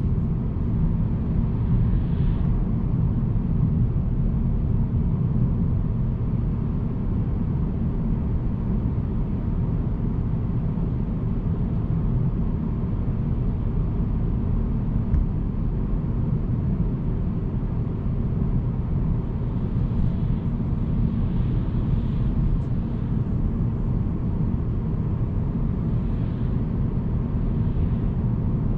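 Steady low rumble of a car's road and engine noise heard inside the cabin while it cruises along, with a few faint swells of hiss in the second half.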